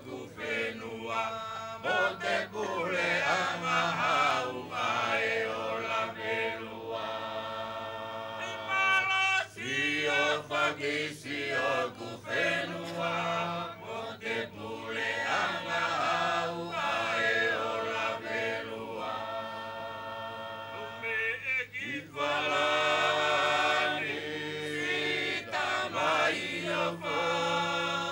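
A choir of voices singing the chant of a me'e dance song, in phrases of long held notes with short breaks between them.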